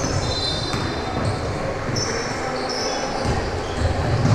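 Basketball game sounds in a gym: short high sneaker squeaks on the court and the ball bouncing, over a steady background of spectators, all echoing in the hall.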